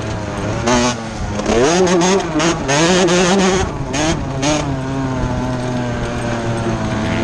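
Dirt bike engine under acceleration on a dirt race track, its pitch rising about a second and a half in and wavering with the throttle, then holding steady near the end.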